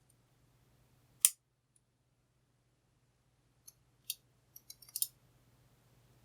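Small metal clicks and ticks of a tool working on the opened Gerda disc detainer padlock's parts: one sharp click a little over a second in, then a cluster of lighter ticks between about four and five seconds.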